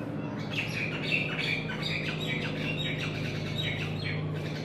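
Birds squawking and chattering in many short, rapid calls, over a steady low hum.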